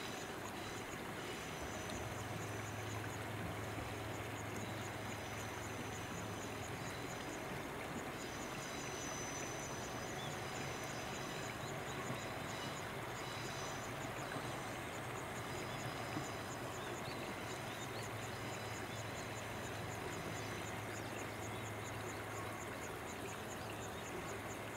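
KiHa 120 diesel railcar passing at restricted speed, its engine a low steady drone that fades in the middle and returns near the end. Underneath is a steady rush of water and a rapid high chirping.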